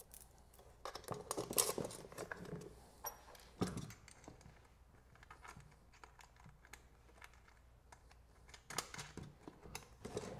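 Small clicks, taps and rattles of metal bolts, washers and nuts being hand-fitted loosely through a plastic kayak mounting plate and a metal adapter, with one louder knock about three and a half seconds in.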